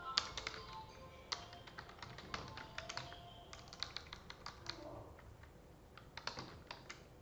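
Typing on a computer keyboard: quick, irregular key clicks in short runs with pauses between them.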